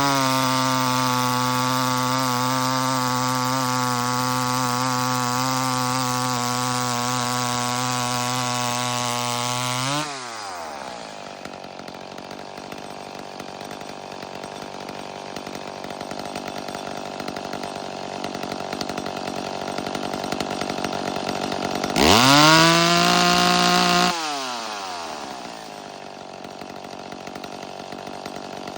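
McCulloch Pro Mac 850 two-stroke chainsaw held at wide-open throttle with no load at steady, high revs for about ten seconds, then dropping back to a lumpy idle. It is blipped up to full revs once more for about two seconds, then idles again. This is a maximum free-rev check of the carburettor's high-speed setting; it turns about 10,460 rpm against the 10,500 rpm limit and idles at about 2,300 rpm.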